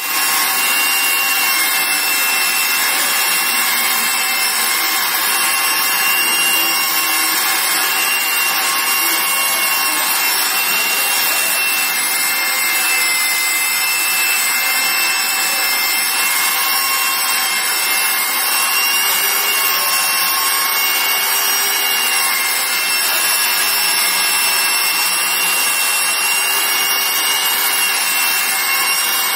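Electric angle grinder with a polishing pad running steadily and rubbing over a marble slab: a constant motor whine over the scrub of the pad on stone.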